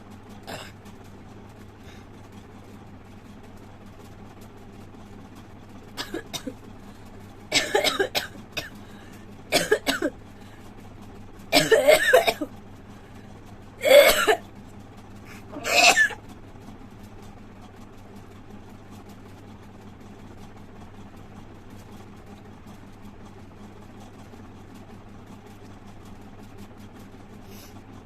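A woman hawking, coughing and spitting into a plastic glass: a few small sounds, then about five loud, short bursts of throat-clearing and spitting in the middle, over a steady low hum.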